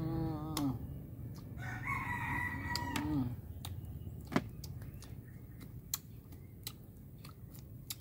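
A rooster crowing: a short call at the very start, then one longer crow about two seconds in that falls away at its end. Scattered sharp clicks follow in the second half.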